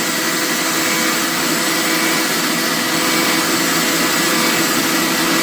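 Ollygrin electric meat grinder's motor running steadily with a constant whirring hum while it works on longaniza sausage meat.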